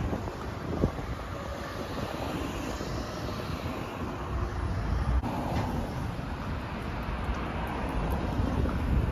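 Road traffic passing on the street alongside, a steady rumble with wind on the microphone.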